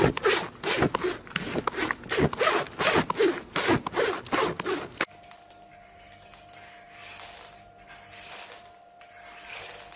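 A horse's muzzle rubbing and pushing against the phone that is filming it, heard as loud, rough scraping rubs on the microphone, about three a second. About five seconds in these cut off, leaving a much quieter stretch of soft, intermittent scratchy sounds over a steady hum.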